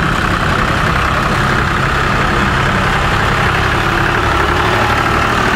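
Vintage McCormick tractor's diesel engine running steadily at low revs as the tractor rolls slowly forward.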